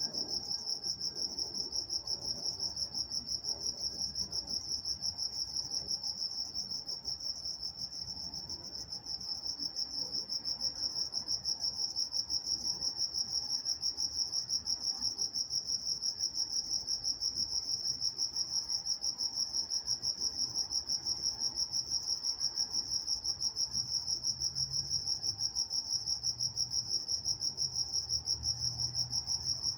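Crickets chirping at night: one high, steady, fast-pulsing chirp dominates, with a brief dip about eight seconds in and a faint low hum underneath near the end.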